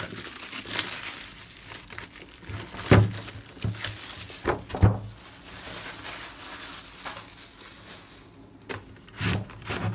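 Plastic shrink wrap being torn and crinkled off a hard plastic tool case, with two sharp knocks a few seconds in as the case is handled.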